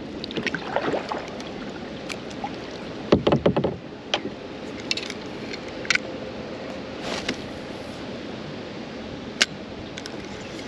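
Kayak paddling on a river: water splashing and dripping from the paddle with scattered sharp clicks and knocks over a steady rush of moving water, the loudest splashes about three seconds in.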